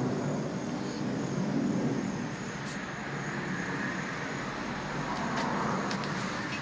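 Steady outdoor background noise of distant road traffic, with a few faint ticks.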